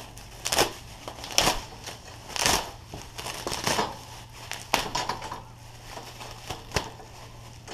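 Clear plastic packing wrap crinkling and crackling in irregular bursts as it is handled and pulled off by hand.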